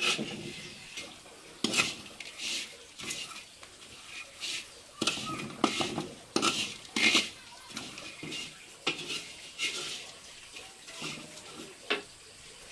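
Metal utensil clinking and scraping against a pan in irregular strokes, as when stirring a batch of ginger jam.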